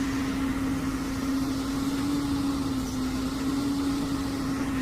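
A machine running with a steady hum: one strong held tone that wavers slightly in pitch, over an even mechanical noise.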